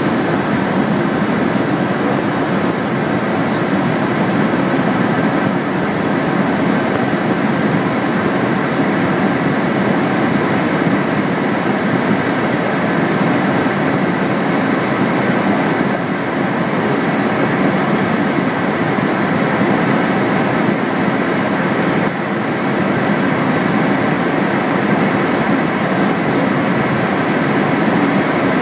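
Steady drone of an aircraft's engines and airflow heard inside the cockpit during the approach descent, unchanging throughout.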